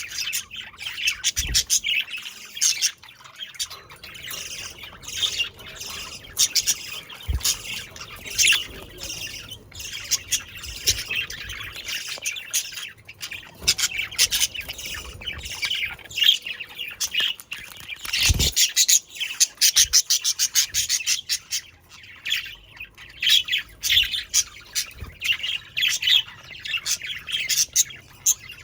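Budgerigars chirping, warbling and squawking continuously in rapid, overlapping calls, with a few low thumps.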